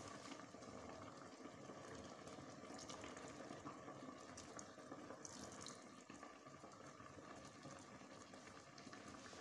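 Faint trickle of water poured from a plastic jug into an aluminium pot of yam-flour (elubo) dough for amala, against a steady low hiss.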